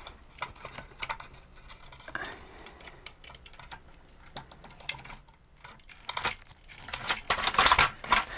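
Small clicks and scrapes of plastic and brass parts being handled as a gear is worked loose from a toy tank's gearbox, with a brief scrape about two seconds in and a louder run of rattling clicks and scrapes near the end.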